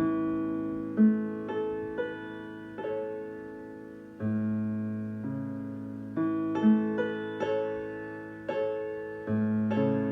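Electronic piano played slowly in a free improvisation: held chords with single melody notes struck over them, and a new low bass chord about every four to five seconds.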